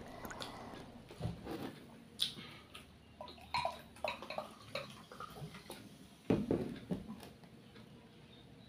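Glass cola bottle and ceramic mug being handled on a table, with cola poured from the bottle into the mug: scattered small clinks and knocks, and a louder thump about six seconds in.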